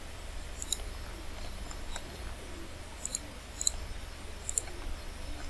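Computer mouse button clicking several times, short sharp clicks, some in quick pairs, over a low steady hum.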